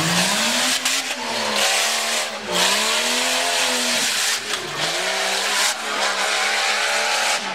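Four-wheel-drive tuff truck's engine revving hard as the truck is driven over dirt mounds. Its pitch climbs, then dips sharply twice, about two and a half and four and a half seconds in, before holding fairly steady.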